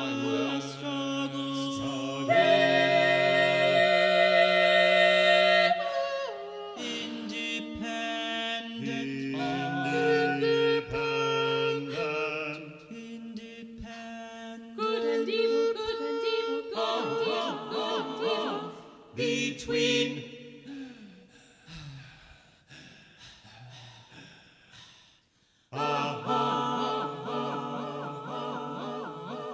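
A six-voice a cappella ensemble, soprano down to bass, singing long held chords that shift every few seconds in contemporary classical vocal music. The singing fades to a faint, sparse stretch about three-quarters of the way through, then a full chord comes back in near the end.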